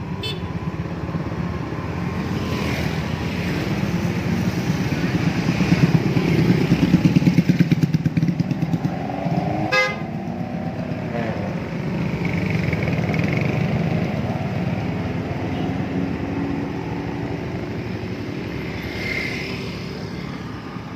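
Road traffic with motorcycles running past, swelling loudest about six to eight seconds in, and a brief vehicle horn toot near the middle.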